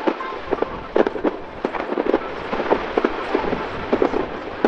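Fireworks display: many sharp bangs from bursting aerial shells in quick, irregular succession, about three or four a second.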